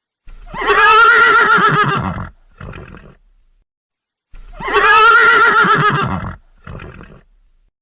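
Pony whinnying twice, the same call repeated about four seconds apart. Each is a wavering neigh of about two seconds followed by a short, quieter sound.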